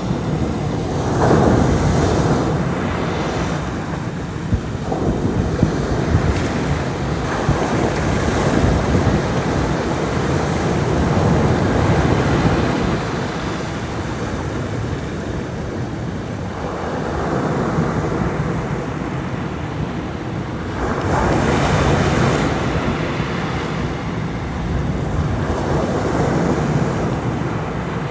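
Rough surf from a typhoon swell breaking on the shore, with repeated surges as waves crash in and wash back, and wind buffeting the microphone.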